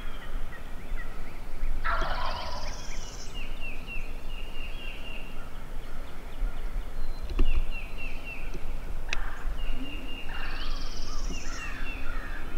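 Wild turkey toms gobbling twice, about eight seconds apart, across an open field, with small birds calling repeatedly in the background.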